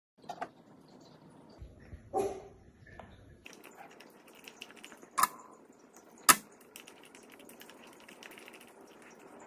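A silicone spatula scraping and stirring thick pancake batter in a stainless steel mixing bowl, with a soft knock about two seconds in and two sharp taps about a second apart a little past halfway.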